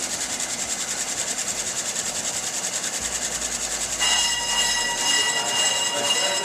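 Bench brake lathe running with a brake rotor spinning on its arbor. About four seconds in, a steady high-pitched squeal starts as the cutting bit is dialled in to scratch the rotor's surface for the scratch cut.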